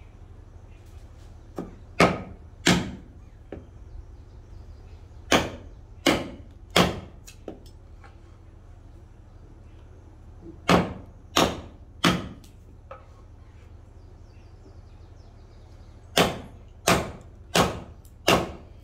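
Mallet striking a wood chisel to carve a wooden workpiece: sharp knocks in four short runs of two to four blows, each about 0.7 s apart, with a few lighter taps between runs.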